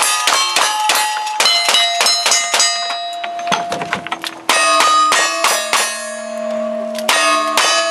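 Rapid gunshots in quick succession, each answered by the clang and ring of steel targets. A pause of about a second comes midway, then the shooting and ringing resume.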